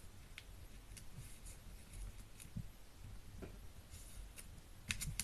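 Faint rustling and crackling of a square sheet of origami paper being folded again and creased by hand, with scattered small crackles and a couple of sharper ones near the end.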